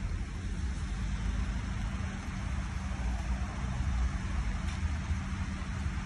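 A parked vehicle's engine idling: a steady, low, even hum.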